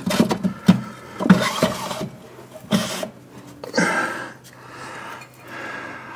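Metal parts being handled as a motorcycle rear axle and its washer are fitted: a few sharp clinks and knocks in the first two seconds, then softer scraping and rustling.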